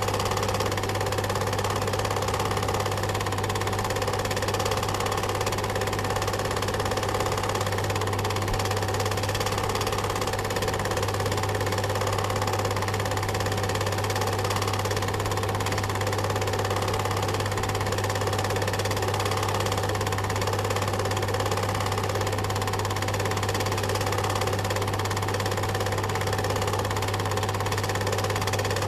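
Cine film projector running steadily, its mechanism giving an even, unbroken whir over a constant low hum.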